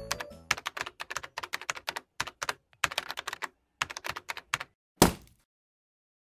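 Quick clicks in short irregular runs, like typing on a keyboard, followed about five seconds in by one loud thunk.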